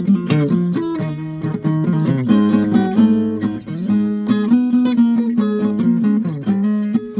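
Acoustic guitar being played, a run of plucked notes and strummed chords one after another.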